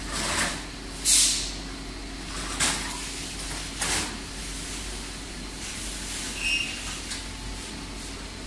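Factory machinery running with a steady hum, broken by a few short hisses like compressed air being released; the loudest comes about a second in.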